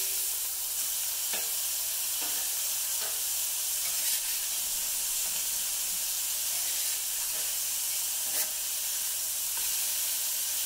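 Smash burger patties and onions sizzling on a stainless steel electric flat-top griddle, a steady hiss, with a few short clicks and scrapes of a metal spatula against the griddle plate.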